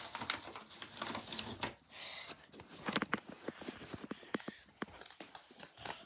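Close rustling and crinkling handling noise with many scattered light clicks and taps, as plush toys and the filming phone are moved about by hand.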